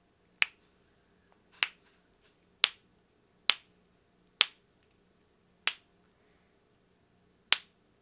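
Rainbow silicone stress-relief snapper fidget toy squeezed in the hand and snapping back, seven sharp, harsh snaps about a second apart.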